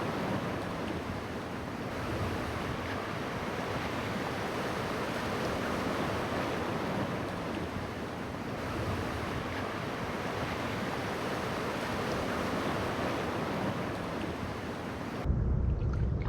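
Ocean surf washing on a beach, a steady rushing noise. About a second before the end it cuts suddenly to a deep, muffled rumble with the high sounds gone.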